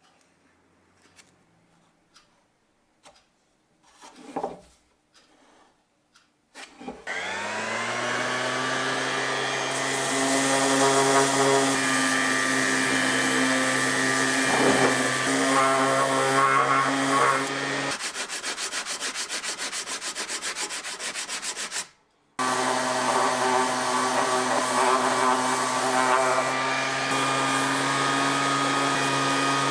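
A few light handling clicks, then an electric power tool's motor spins up about seven seconds in and runs steadily with a rubbing, grinding contact against the workpiece. Its sound turns to a fast, even pulsing for a few seconds, cuts out briefly, then runs again.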